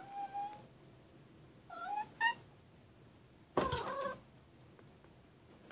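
Long-haired domestic cat meowing three times, asking to be let into a closed closet. The second call rises in pitch, and the last is the loudest.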